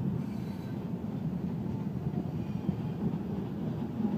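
Steel wheels of open-top coal hopper cars rolling by on the rails in a steady rumble, with wind buffeting the microphone.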